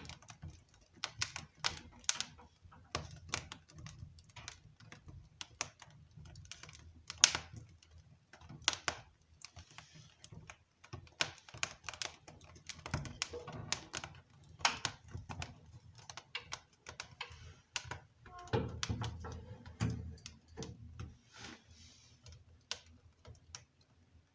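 Wood fire crackling and popping inside a homemade rocket stove, with sharp irregular pops at uneven intervals and a short low rush about three quarters of the way through.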